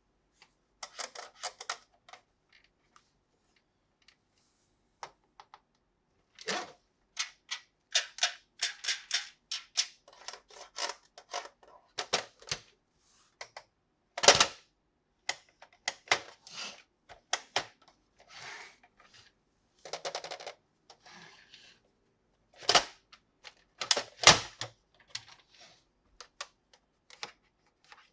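Plastic toy packaging and toy parts being handled and opened: a run of sharp clicks, taps and short crinkling rustles, separated by brief pauses, with the loudest snaps about halfway through and again near the end.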